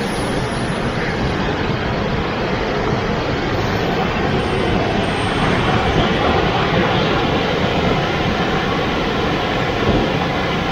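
Wind buffeting the microphone while cycling, a steady loud rush with low rumbling flutter.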